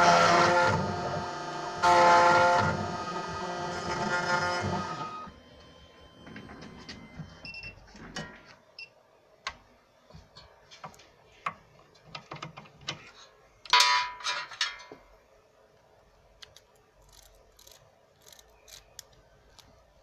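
Computerised key-cutting machine's cutter spinning and milling a tubular key, a steady whine made of several tones that stops about five seconds in. Then scattered light clicks and handling, with a louder burst of metallic clicks around two thirds of the way through as the key is unclamped and removed.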